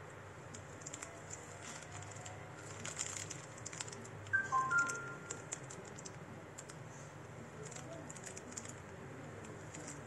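Light, irregular clicks and taps scattered throughout, like keyboard typing. About four seconds in, a short electronic chime of a few stepped notes is the loudest sound.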